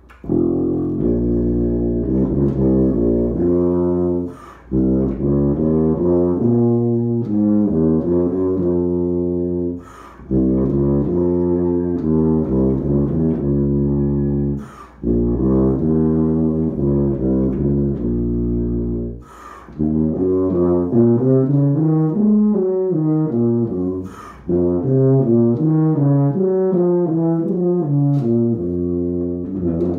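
Rotary-valve tuba playing a solo passage in phrases about five seconds long, each followed by a quick breath. The notes move faster in the last third.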